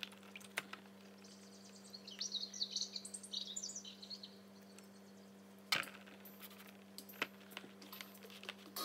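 Slices of bread being dipped and pressed into egg mixture in a glass bowl: soft wet crackling for a couple of seconds, then a sharp tap and a few faint ticks, over a steady low hum.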